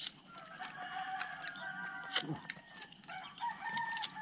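A rooster crowing twice: a long held call from about half a second in, then a second, slightly higher crow near the end. A few sharp clicks sound in between.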